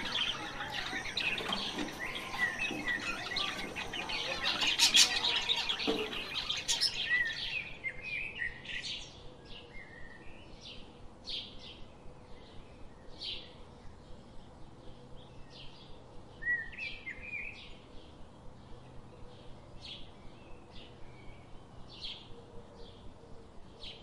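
Zebra finches chirping: a busy jumble of overlapping calls for the first several seconds, then sparser short chirps repeated at a steady pace, roughly one or two a second.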